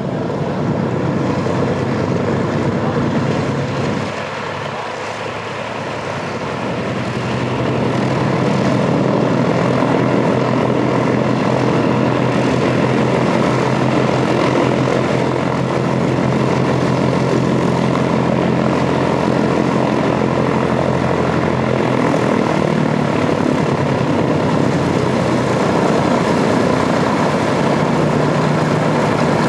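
The four Wright R-3350 eighteen-cylinder radial engines of a Boeing B-29 Superfortress running at low taxi power, propellers turning. The sound dips briefly about four seconds in, then rises and holds steady.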